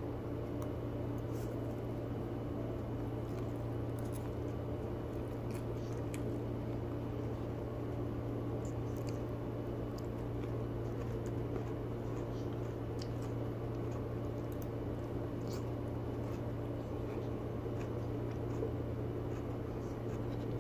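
Mouth sounds of eating spaghetti: chewing, with scattered small clicks of the fork on teeth and plate, over a steady low hum.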